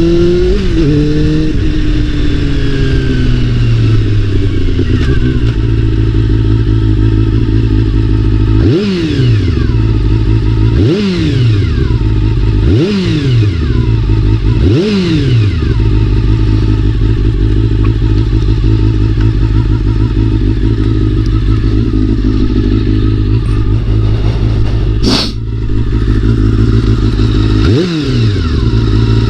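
Honda CBR400RR inline-four engine running steadily, its pitch falling over the first few seconds. It is then revved in four quick blips about two seconds apart and once more near the end. A single sharp click comes about two-thirds of the way through.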